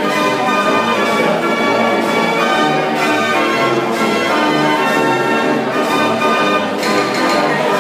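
Dutch mechanical street organ (draaiorgel) playing a tune on its pipes, over a bass note that repeats about twice a second.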